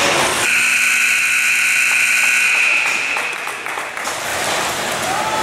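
Rink scoreboard buzzer sounding one long steady blast of about two and a half seconds, starting sharply about half a second in, over rink noise: the signal that the period clock has run out.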